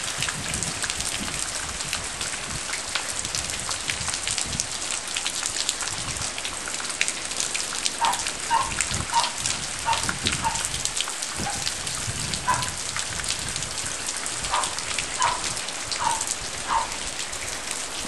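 Steady rain falling, a dense patter of drops. From about halfway through, short high-pitched blips repeat every half second or so.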